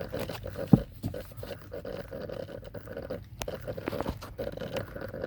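Fast, even clicking, several clicks a second, from the 2003 Honda Pilot's temperature blend door actuator behind the dashboard, with one louder thump about a second in. It clicks with the temperature set between max cold and max hot, the fault that the owner cured by cleaning the actuator's dirty contacts.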